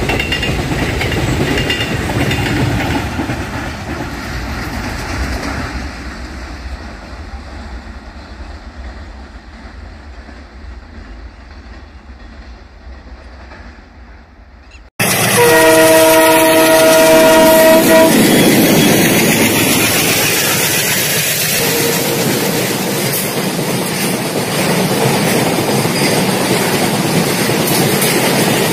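Freight train wagons rolling past on the rails, their noise fading steadily as the train moves away. After an abrupt cut, a diesel locomotive's multi-note horn sounds for about three seconds, followed by the loud, steady running noise of a train.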